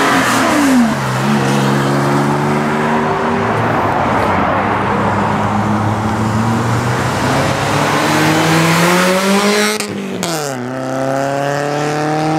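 Car engines driving past and accelerating one after another. A note drops as a car goes by about a second in and then holds steady. Later an engine climbs in pitch for a few seconds as it speeds up, breaks off suddenly, and another falls in pitch as it passes.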